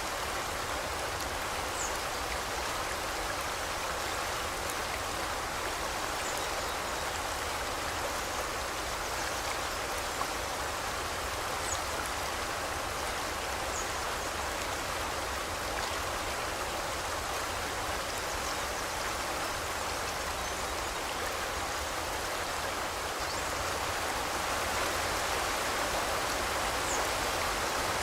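Forest river flowing in a steady rush of water, with a few faint, brief high bird chirps now and then.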